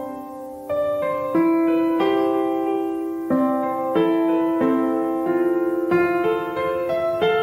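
Background piano music, with new chords struck about once a second.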